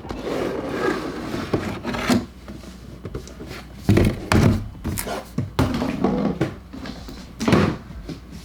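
Toy box and packaging being handled and opened by hand: rustling and scraping, with scattered knocks and a few heavier thumps about four seconds in and again near the end.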